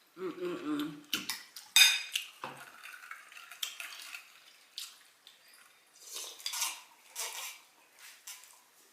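Cutlery clinking and scraping against a dinner plate in short, irregular strokes, scooping up the last of the collard greens, with one sharp clink about two seconds in.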